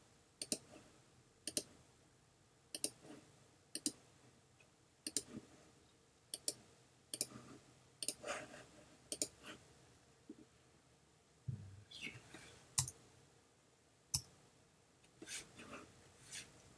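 Computer mouse buttons clicking about once a second, many clicks coming as a quick press-and-release pair, while selecting edges on screen.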